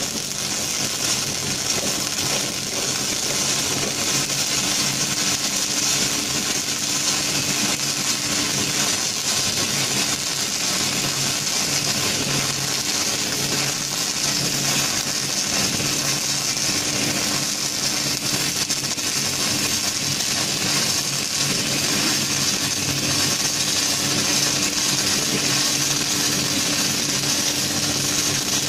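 Robotic arc welding on a forklift mast: the robot torch's welding arc gives a steady, continuous crackling hiss, with a steady low hum underneath.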